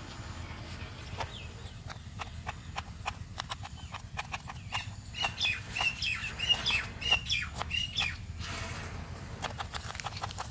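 Kitchen knife chopping an apple on a plastic cutting board: quick, irregular taps. From about five to eight seconds in, a bird chirps repeatedly over the chopping, louder than the taps.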